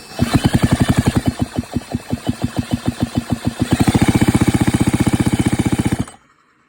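Two-stroke chainsaw engine being cranked over without firing, a rapid even pulsing of about ten strokes a second that stops suddenly about six seconds in. The engine does not catch because the ignition coil is producing no spark.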